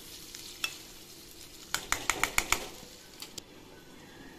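Spatula stirring a simmering curry in a pot, then a quick run of about six sharp clinks a little under two seconds in as the utensils knock on the pot and a glass lid goes on. A faint steady sizzle from the simmering curry runs underneath.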